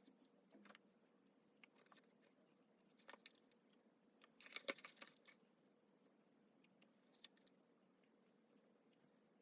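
Faint, scattered taps and small rustles of paper and stickers being handled during diary decorating, with a brief crinkling rustle about halfway through and a single sharp click a couple of seconds later.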